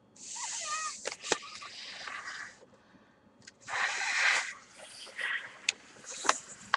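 Breath blown into the hole of a folded paper water bomb (origami paper balloon) to inflate it: a long blow, then a shorter, stronger one about four seconds in, with a few sharp clicks of the paper being handled.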